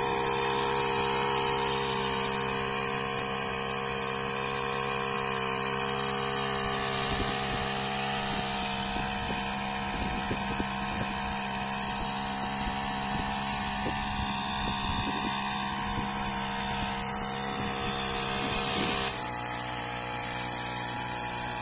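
Small petrol engine of a backpack power sprayer running steadily at constant speed while it sprays. Its hum shifts slightly near the end.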